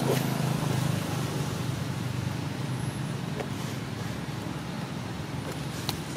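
Steady low engine hum of a motor vehicle, strongest in the first second and easing a little after, with a few faint high chirps.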